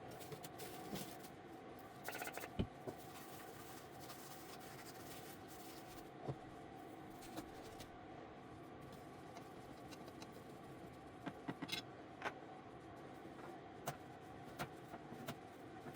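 Faint steady hum with scattered light clicks and taps, and a short hiss about two seconds in and again near twelve seconds.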